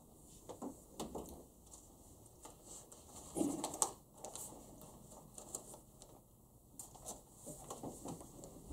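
Quiet room with scattered small clicks and rustles of things being handled, and a louder brief rustle about three and a half seconds in.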